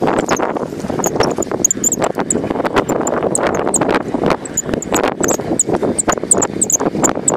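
Spinning fishing reel being cranked to bring in a line with a small fish on it: a dense run of quick clicks and knocks, mixed with rubbing and knocking on the handheld camera.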